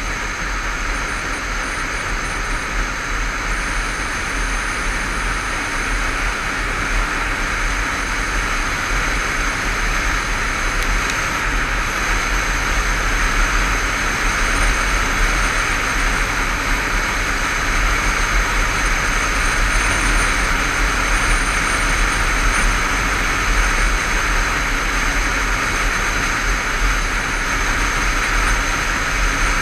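Riding noise from a Honda CBF500 motorcycle at cruising speed: steady wind rush and buffeting on the camera microphone over the bike's running engine and tyre noise, growing slightly louder in the first half.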